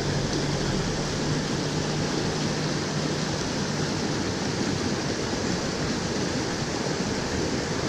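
Small stream rushing steadily over an old stone dam and through rocky riffles.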